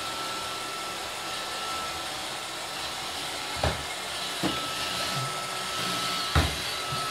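iRobot Roomba 532 robot vacuum running on a wooden floor, its motor and brushes making a steady whirring hiss with a thin whine. Its bumper knocks against the base of a floor fan three times: a little past halfway, about a second later, and near the end, the last the loudest.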